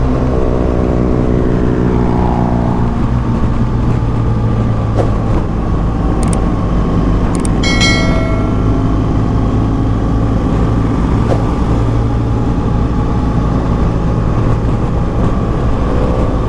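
BMW R1200GS boxer-twin engine running steadily at highway cruising speed, with wind and road noise on the bike. A short high-pitched tone sounds briefly about eight seconds in.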